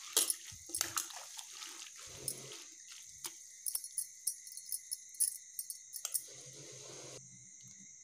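Hands rubbing and squeezing wet chopped urad bean leaves in water in a metal pot, making irregular short splashes and squelches.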